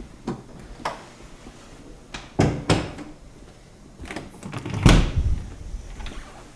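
A series of separate knocks and thumps, a close pair about two and a half seconds in and the loudest, deepest thump about five seconds in.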